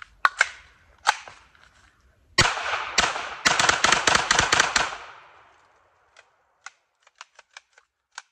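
Century Arms Draco 9mm pistol with a binary trigger firing: a few widely spaced single shots, then a fast string of shots as the rest of the magazine is emptied, with the trigger firing on both pull and release. The whole magazine runs without a malfunction, and a few faint light clicks follow near the end.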